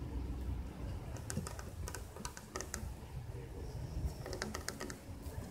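Irregular light clicks and taps, bunched in two spells, over a steady low rumble.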